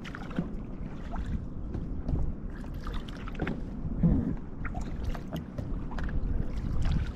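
Kayak paddle strokes in river water: a splash and trickle of drips from the blades every second or two, over a low steady rumble.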